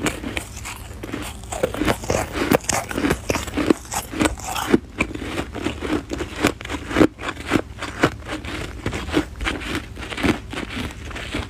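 Packed snow being bitten and chewed close up: a fast, irregular run of crunches.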